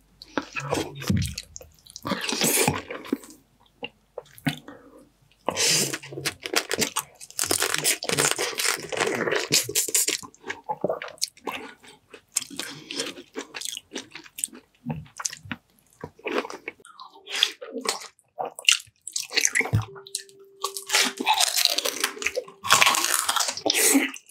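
Close-miked eating of boiled seafood: crunching through crab shell and shrimp, chewing and slurping, in irregular bursts with short pauses.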